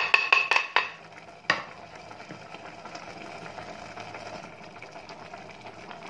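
A run of quick, ringing clinks of a glass bowl and spoon against a stainless steel pot as chopped chilies are tipped in, with one more knock about a second and a half in. Then a steady low hiss of the soup simmering in the pot.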